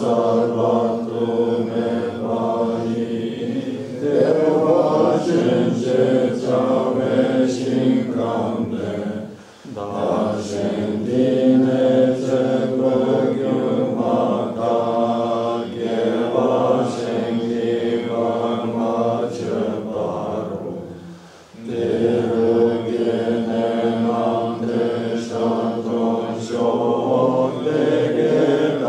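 Voices chanting a Buddhist prayer in a steady, drawn-out recitation, with two brief breaks for breath.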